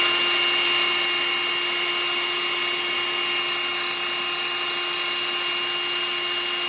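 Bauer 20-volt brushless cordless 3x18 belt sander running free at full speed with an 80-grit belt: a steady high whine over the hiss of the belt. It is switched off right at the end and starts to wind down.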